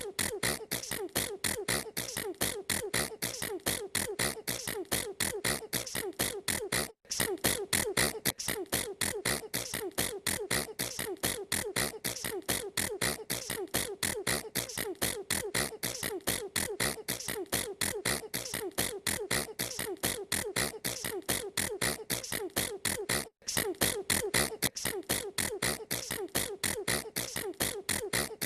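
A girl's sneezes repeated in very fast succession, several a second, as an unbroken rapid train with two brief gaps.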